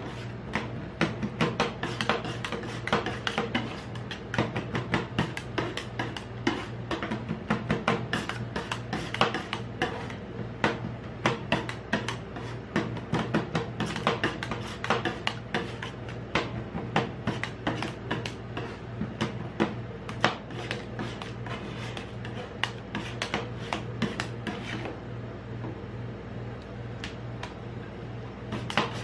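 Two metal spatulas chopping, tapping and scraping on a frozen steel ice-roll plate, a quick irregular clatter of many sharp metal clicks as chocolate pieces are chopped into the freezing cream base. A steady low hum runs underneath.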